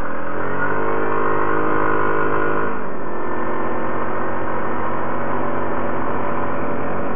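Yamaha ATV engine, fitted with Commander WS4 snow tracks, running under way. Its pitch rises as the throttle opens about half a second in, holds, then eases off about three seconds in.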